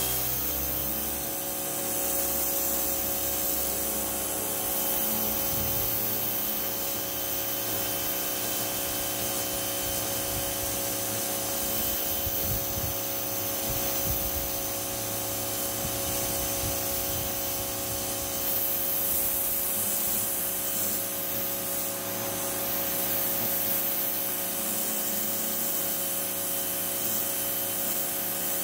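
Parkside PHD 170 D2 electric pressure washer running steadily, its motor and pump giving a constant whine, with the hiss of the high-pressure water jet striking concrete paving stones.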